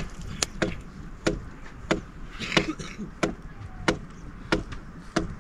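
A steady series of sharp knocks, about three every two seconds, like repeated chopping blows, with a brief hiss near the middle.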